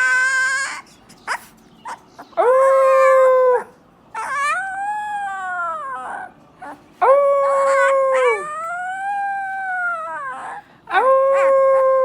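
Husky puppy howling: a run of high howls, each a second or two long, several starting on a held note and then arching up and down in pitch, with short gaps between.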